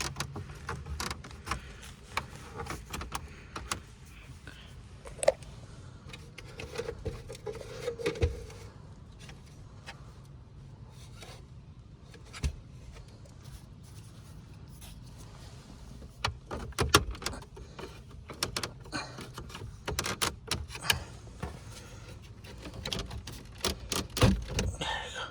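Irregular clicks, taps and small rattles of hand tools against the car's plastic dash trim as the pieces are worked loose, with busier clusters about two-thirds of the way through and again near the end.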